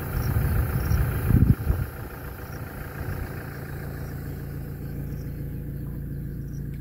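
A 4x4's engine idling steadily, heard from inside the cabin, with a few low thumps in the first couple of seconds.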